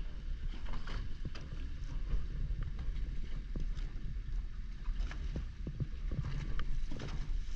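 A boat under way: a steady low rumble with wind on the microphone and scattered short knocks.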